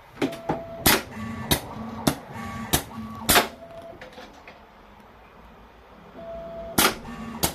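DIY automatic 5C collet chuck and bar puller cycling under CNC control, driven by dual pneumatic cylinders: a run of sharp mechanical clacks, five in the first three and a half seconds and two more near the end, with a steady hum between the clacks.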